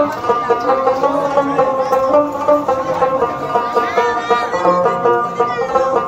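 Background instrumental music led by a plucked string instrument, with notes changing in a quick, even rhythm.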